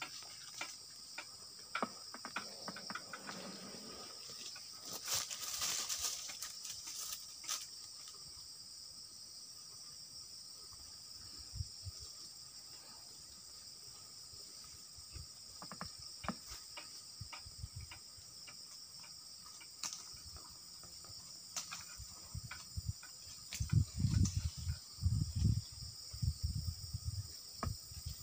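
Steady high-pitched chorus of insects, with scattered clicks and a brief rustling noise about five seconds in. Near the end comes a run of low thuds.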